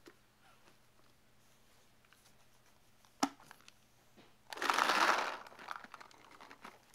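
A sharp click about three seconds in, then about a second of dense rattling clatter as a pod of paintballs is poured into a Prophecy paintball loader.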